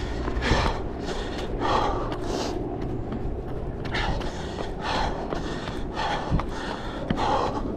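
Heavy breathing of a person running: loud, hissy breaths in and out, roughly one a second.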